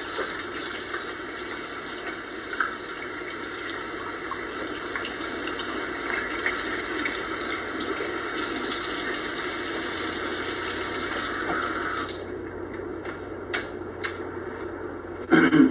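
Kitchen faucet running steadily into a sink while hands are rinsed under the stream, shut off suddenly about twelve seconds in. A few light clicks follow, then a brief loud noise near the end.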